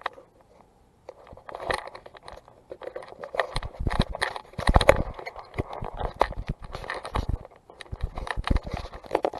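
Handling noise from a camera on a tripod being picked up and carried: a run of irregular knocks, clicks and scrapes, starting about a second in, with a few louder thumps near the middle.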